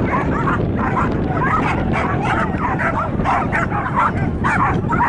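Dogs yelping and whimpering in quick, short high calls, several a second, over a steady low noise.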